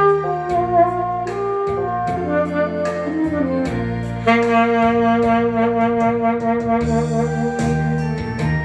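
Saxophone playing a slow melody over a backing track with bass and a steady beat; the line steps downward in the middle, then holds one long note for about three seconds.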